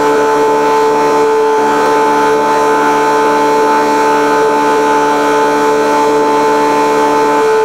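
The boat's onboard machinery running steadily, a loud constant drone with a steady high whine over it and no change in pitch.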